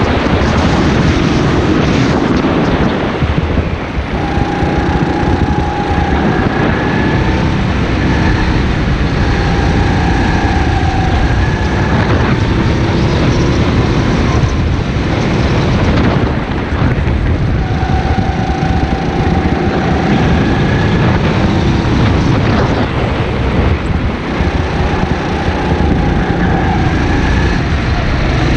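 Go-kart engine running at racing speed, its pitched note coming and going as the kart brakes and accelerates through the corners, under a steady rush of wind and track noise on the onboard microphone.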